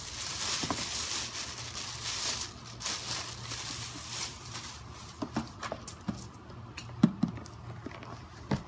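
A plastic shopping bag rustling and crinkling as a shoebox is pulled out of it, then several light knocks and taps as the cardboard shoebox is handled.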